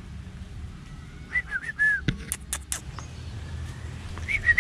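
A person whistling short notes to call a dog: a few gliding whistles about a second in, a few sharp clicks, then a quick run of about six short whistles near the end.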